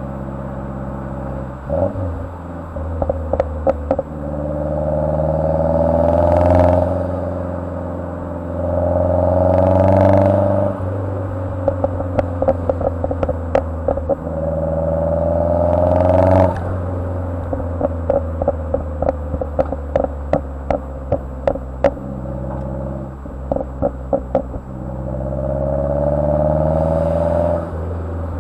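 Mazdaspeed3's turbocharged 2.3-litre four-cylinder revved four times, each rev rising for two to three seconds and cut off sharply. After each one comes a rapid string of pops and crackles from the exhaust, which the engine tune has enabled on overrun.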